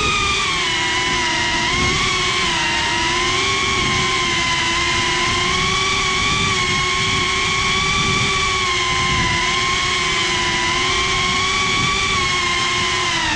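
Motors and propellers of a GEPRC CineLog 35 cinewhoop FPV quadcopter whining in flight, heard from the GoPro mounted on the drone. The pitch wavers up and down with the throttle and dips near the end, over a low rushing noise.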